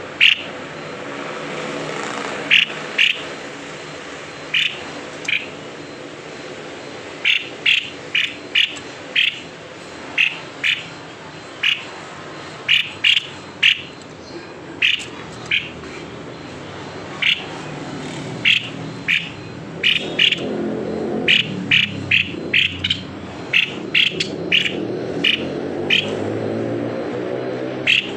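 Tepus leher putih babbler calling steadily: short, sharp notes, often in quick pairs, repeated every second or so. A low background drone swells in the second half.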